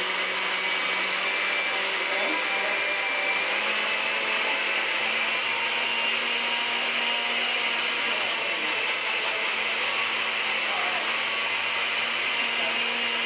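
Vintage Osterizer blender running at full speed, crushing ice and frozen pineapple chunks for a margarita. A steady motor whir whose hum rises slightly about three and a half seconds in, then holds.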